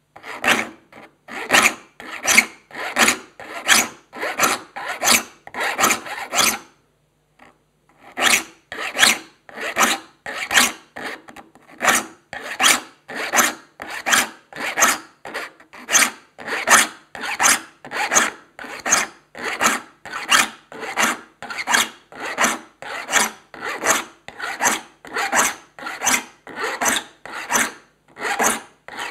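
Saw file pushed across the teeth of a 7-point crosscut handsaw in firm, even rasping strokes, about three every two seconds, sharpening the teeth to a crosscut. There is a short pause about six and a half seconds in, then the strokes carry on.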